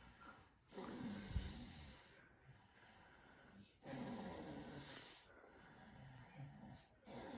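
A person snoring: two snores about three seconds apart, each lasting about a second and a half, with a third starting near the end.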